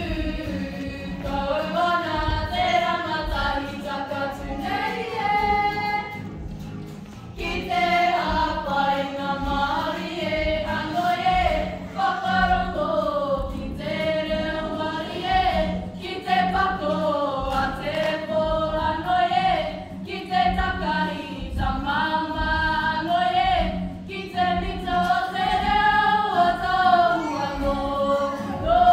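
A group of girls singing together as a choir, a song in phrases with short breaks between them, the longest about six and a half seconds in.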